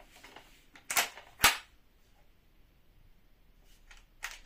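Sharp mechanical snaps from an AK-style replica rifle being handled and worked: two loud snaps about half a second apart about a second in, then lighter clicks near the end.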